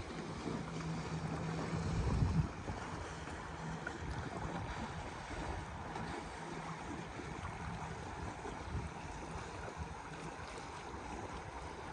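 Distant motorboat engine drone, a steady low hum that fades after about seven seconds, over wind on the microphone and sea wash; a stronger wind gust buffets the microphone about two seconds in.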